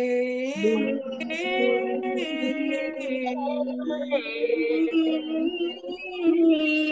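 Women's voices singing long held notes in a vocal warm-up exercise, the pitch stepping up and down from note to note, with more than one voice at times.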